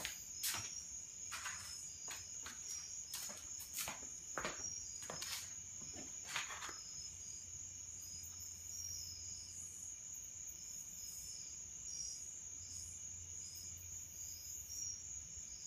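Light clicks and taps of a control horn and a super glue bottle handled on a workbench, several in the first half, over a steady high-pitched trill and a low hum.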